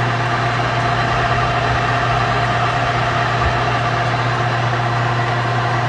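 Metal lathe running steadily while a boring bar cuts the inner diameter of a 5.5-inch PVC bar: an even hum with a steady whine over it.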